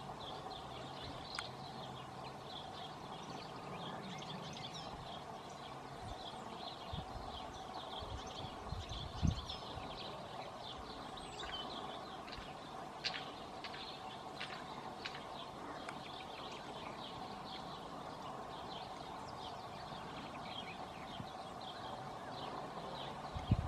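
Small birds chirping and twittering throughout over a steady low background hum, with a few dull low thumps about eight to nine seconds in.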